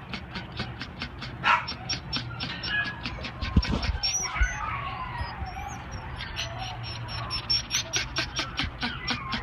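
Tricolor Chihuahua mix panting fast, about five breaths a second, with thin whines in the middle and a low bump about three and a half seconds in.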